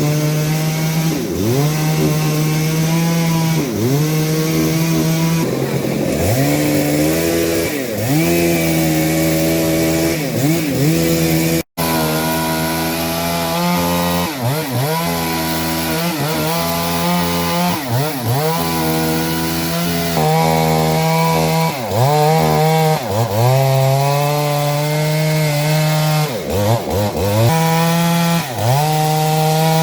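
Two-stroke chainsaw cutting through a fallen kapok (randu) tree trunk. Its engine pitch sags under load and climbs back again every second or two, with a momentary break near the middle.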